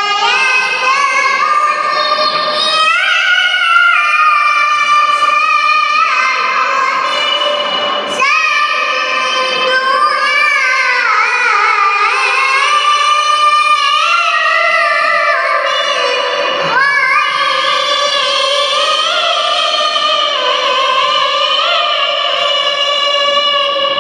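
A young girl chanting Quran recitation in the melodic tilawah style: long, high, ornamented phrases that waver and glide in pitch, with short breaths about 3, 8 and 17 seconds in.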